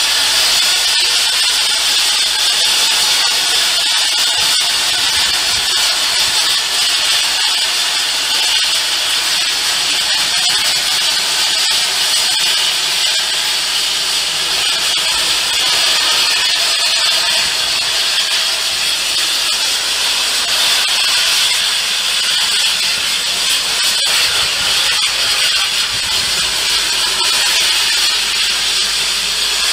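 LMS Jubilee class 4-6-0 steam locomotive 45596 Bahamas letting steam from its open cylinder drain cocks: a loud, steady hiss.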